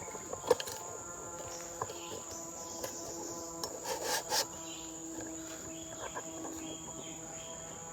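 Forest insects, crickets and the like, keeping up a steady high-pitched drone, with a few knocks and rustles of handling, the loudest about half a second in and a cluster around four seconds in.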